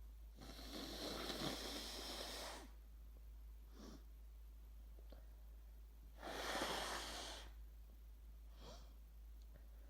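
A sick person's congested breathing: two long, noisy breaths through a stuffed-up nose, each followed about a second later by a short sniff.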